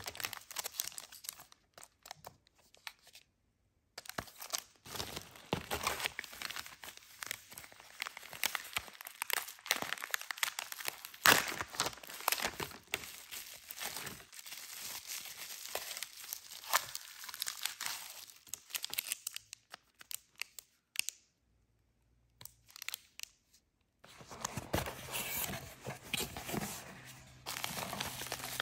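Bubble wrap and paper packaging crinkling and rustling as it is unwrapped by hand, full of sharp crackles. The sound cuts out suddenly twice, briefly near 3 s and for a few seconds near the 21 s mark.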